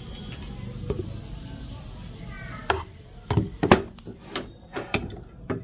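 Coffee brewing gear being handled and set down on a plastic tray: a glass server and a digital scale knock and clink against the tray in a quick run of separate hits during the second half, the loudest a little past the middle.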